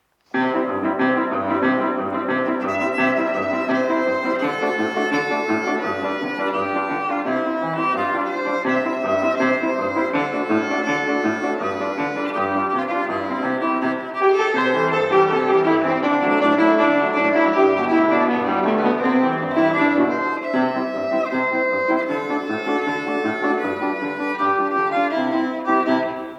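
Piano music played solo, a pupil's recital piece, with a steady repeated bass figure under the melody; it begins suddenly out of silence just after the start.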